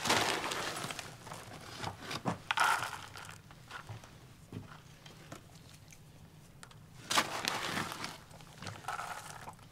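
Clear plastic bag of dry dog kibble crinkling as it is handled in bursts, with a few small clicks of kibble dropping into a collapsible silicone bowl.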